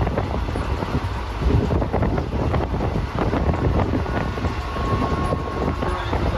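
Express passenger train running between stations, heard from on board: a continuous rumble and rattle of the coach over the track, with wind on the microphone.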